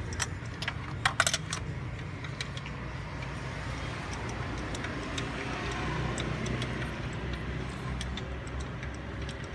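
A few light metallic clinks with a short high ring, bunched together about a second in, from small metal parts being handled. A steady low hum runs underneath.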